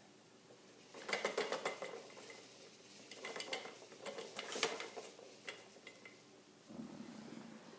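Plastic toys and parts of a baby activity jumper rattling and clattering as the baby bounces: two bursts of quick clicks, then a few single clicks.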